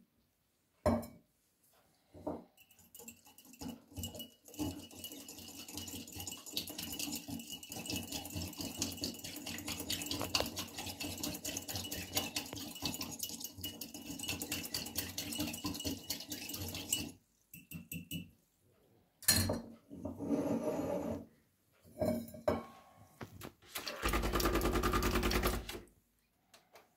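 Small wire whisk stirring hot chocolate in a ceramic mug: rapid clinking and scraping for about fifteen seconds. A few knocks follow. Near the end the DeLonghi Dedica EC685's vibratory pump buzzes steadily for about two seconds.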